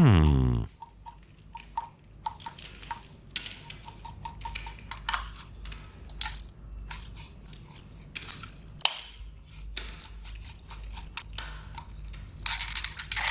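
Light clicks and taps of metal and plastic from a 1:18-scale diecast model car being handled, scattered irregularly. A loud tone falling steeply in pitch opens the sequence.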